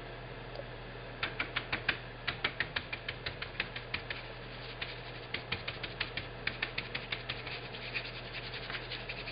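Stiff paintbrush scrubbing paint into fabric, quick scratchy strokes about five a second. They start about a second in, pause briefly near the middle, and give way to softer rubbing near the end.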